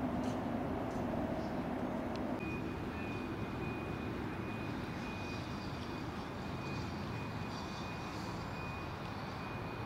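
Outdoor city background noise with a low engine hum that stops about two seconds in. After that, a vehicle's reversing alarm beeps repeatedly at a single high pitch.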